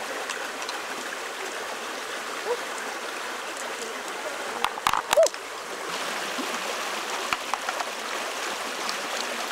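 Steady rushing of a shallow stream, with a quick cluster of sharp clicks about halfway through as mussel shells are handled on the rocks.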